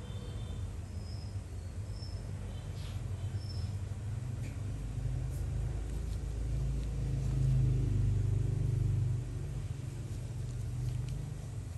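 Low steady background rumble that swells for a few seconds past the middle, with a few faint short high chirps in the first few seconds.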